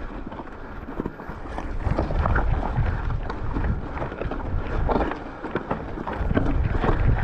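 Mountain bike being ridden over rough, rocky trail: wind buffeting the microphone over a low rumble, with a continuous run of irregular rattles and knocks from the bike and tyres.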